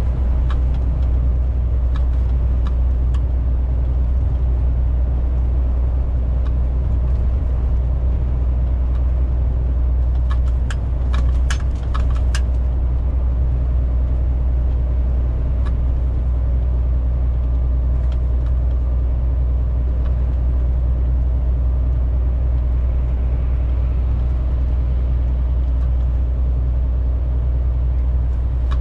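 Cab interior of a MAN TGX 470 truck at motorway cruising speed: the straight-six diesel and road noise make a steady low drone. A quick run of sharp clicks comes about ten seconds in.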